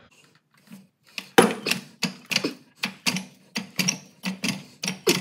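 Jack being pumped by its handle to lift a transmission: short, evenly spaced mechanical strokes, about three a second, starting about a second and a half in.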